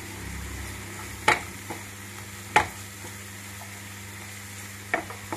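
A spatula stirs peas, tomato and onion masala in a nonstick kadhai over a steady frying sizzle. The spatula knocks sharply against the pan three times: about a second in, near the middle and near the end.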